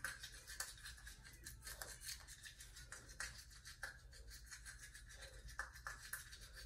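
Faint scrubbing of a child's manual toothbrush on his teeth: many quick, short bristle strokes.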